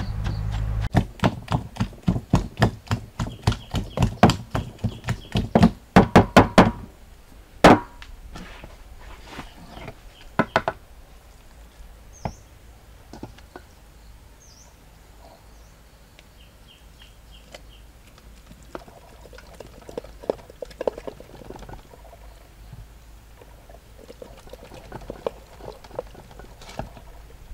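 Long wooden pestle pounding a spice paste in a mortar, about three strokes a second for the first several seconds, then a few single heavier thumps. After that, only quiet handling sounds.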